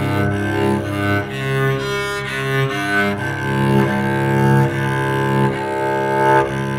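Homemade solid-body electric cello bowed and heard through a small amplifier, playing a slow line of sustained notes that change about once a second.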